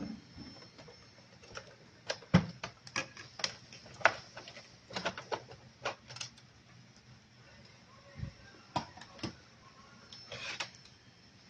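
Irregular clicks and light knocks from handling wires, connectors and plastic and metal parts inside an opened LCD projector. They come thick and fast for the first half, then fewer and more spread out.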